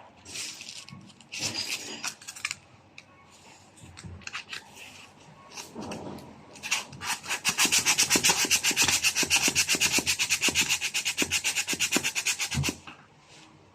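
Sandpaper on a hand sanding block rubbed over a surface: a few separate scraping strokes, then a long run of fast, even back-and-forth strokes that stops suddenly near the end.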